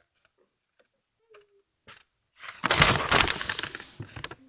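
A sheet of paper being folded and creased by hand: a loud rustle lasting nearly two seconds that starts about halfway through, after a few faint ticks.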